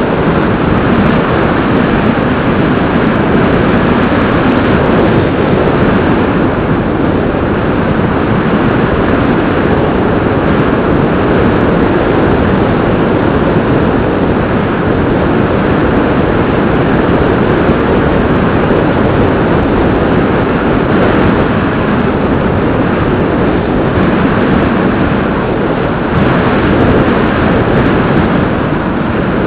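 Loud, steady rush of airflow and propeller noise picked up by a camera riding on a Bixler 2 radio-controlled foam plane in flight, its electric pusher motor running under the wind noise.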